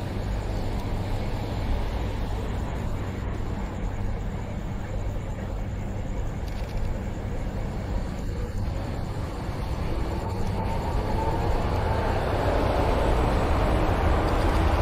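City street traffic rumbling steadily, with a tram growing louder over the last few seconds as it approaches.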